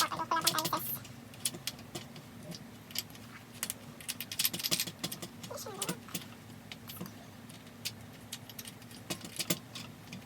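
Scattered clicks and taps with a jangly rattle of plastic and metal parts, from a ring light being fitted and locked onto its tripod stand; the rattling is densest about halfway through.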